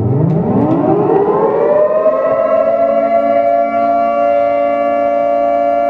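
Civil defense siren winding up, its pitch rising over about two and a half seconds, then holding a steady wail of several tones sounding together.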